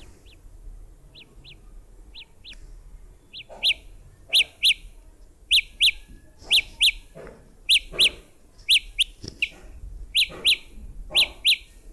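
A Samsung Galaxy Buds earbud playing its Find My Earbuds alert: short, high chirps, mostly in quick pairs, repeating about once a second. They are faint at first and get much louder about three and a half seconds in.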